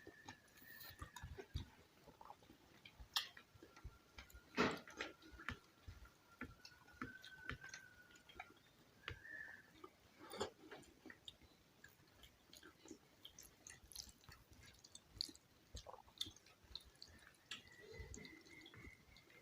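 Quiet eating sounds: soft chewing and small mouth clicks, with two louder sharp taps about five and ten seconds in.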